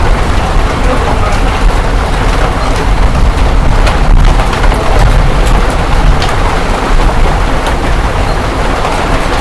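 Heavy rain and hail pelting down in a loud, continuous roar with scattered sharp ticks of hailstones striking, over a deep rumble.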